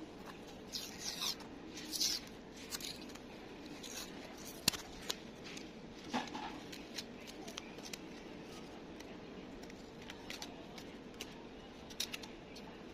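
Small handling noises: short rustles, scrapes and scattered clicks as a stainless-steel ring guide is held against a fishing rod blank and masking tape is pulled from the roll and pressed over the guide's foot. One sharp click stands out near the middle.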